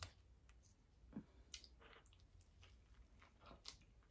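Faint, close-miked eating sounds: soft chewing of a burger, with a few scattered small clicks and wet squishes.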